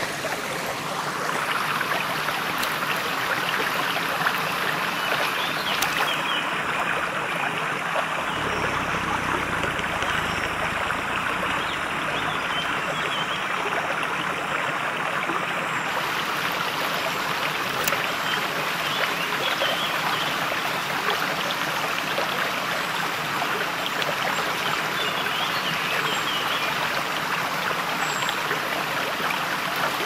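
Shallow woodland brook running over stones and spilling over a low ledge in a small cascade: a steady babbling and splashing of water.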